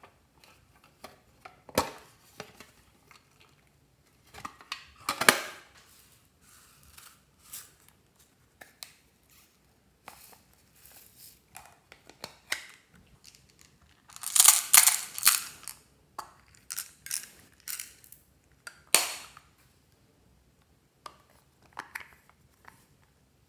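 Small tin and plastic stationery boxes handled and opened: scattered sharp clicks of lids and catches, and short rattles as the contents (foam flower cut-outs, feathers) are shaken and tipped out, with the loudest cluster of clattering about halfway through.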